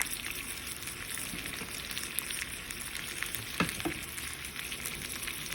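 Noodles being stirred into Alfredo sauce in a hot pan: a steady sizzle with a few short scrapes of the stirring utensil against the pan.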